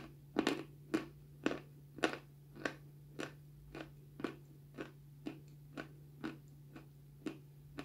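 Close-miked chewing of a dry, crunchy powdery mash with the mouth closed: a steady crunch about twice a second, the loudest ones in the first two seconds.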